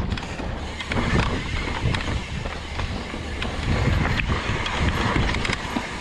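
Evil Insurgent MX mountain bike riding down a dirt trail: tyres rumbling over the ground, with the bike rattling and clicking over bumps and wind buffeting the microphone.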